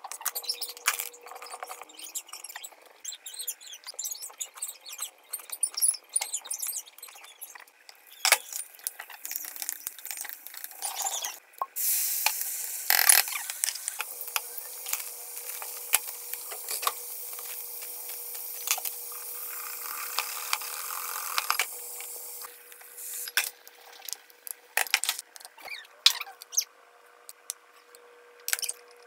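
Kitchen prep sounds: a knife cutting on a wooden cutting board, an egg being cracked over a glass bowl, and scattered clinks and knocks of utensils. About halfway through, a steady hiss lasts roughly ten seconds, under a faint steady hum.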